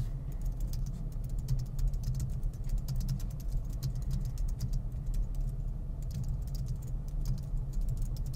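Computer keyboard being typed on: quick, irregular keystroke clicks, over a steady low hum.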